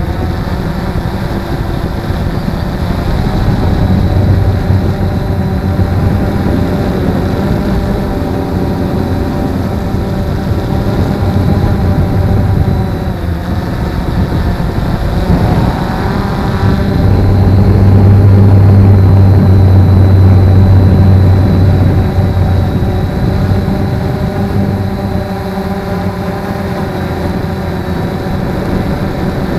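Quanum Nova quadcopter's electric motors and propellers whirring, heard close up from a camera mounted on the quadcopter, the pitch shifting gently as the throttle changes and growing louder for a few seconds past the middle.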